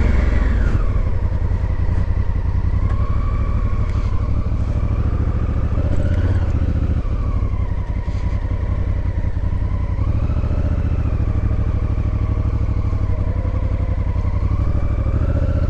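Motorcycle engine running under way, its pitch rising and falling gently several times as the throttle and speed change.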